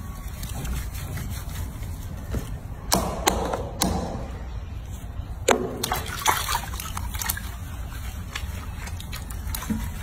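Water sloshing and splashing in a sink as hands scrub a soapy baby monkey, with a few sharper splashes around the middle, over a steady low rumble.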